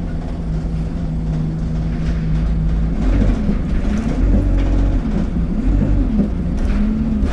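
Diesel bus engine and drivetrain running under way: a steady drone for the first three seconds, then the pitch rises and falls several times as the load and speed change.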